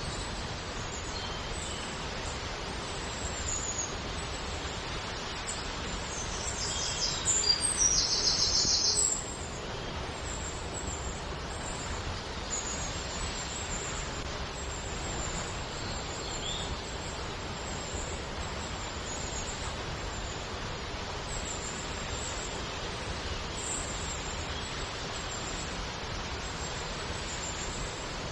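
Steady rushing of a waterfall with small birds chirping high and often over it. A louder high-pitched burst of chirping comes about seven to nine seconds in.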